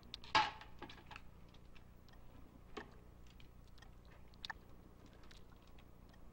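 Eating by hand: scattered small wet clicks, crunches and lip smacks as two people bite and chew chicken, with one louder bite about half a second in, over a faint steady low hum.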